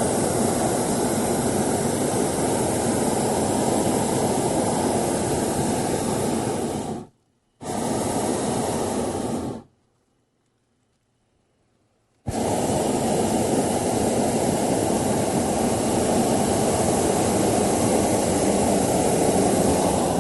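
Hot-air balloon's propane burner firing with a steady rushing noise. It cuts off sharply about seven seconds in, fires again for about two seconds, and falls silent for a few seconds. It then fires again in a long blast that stops near the end.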